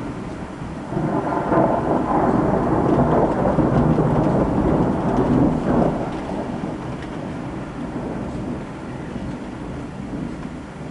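A long roll of thunder that swells about a second in, stays loud for several seconds, then dies down to a lower rumble, with rain falling throughout.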